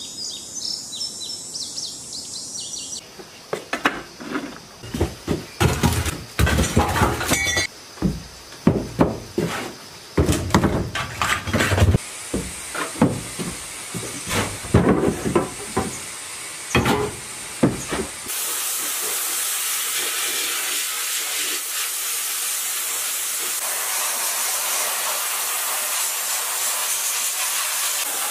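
Brief high chirping, then loud, irregular clanks and knocks as metal engine parts and a wooden stool are moved about in a steel-walled booth. About 18 seconds in this gives way to a steady hiss of a sandblasting nozzle blasting rusty parts.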